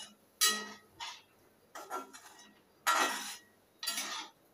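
Metal ladle scraping and clinking against a steel kadhai as a thick yogurt-potato curry is stirred: several separate strokes about a second apart.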